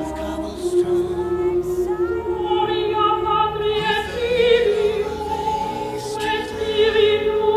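Music: voices singing long held notes with a slight vibrato, in a choral style.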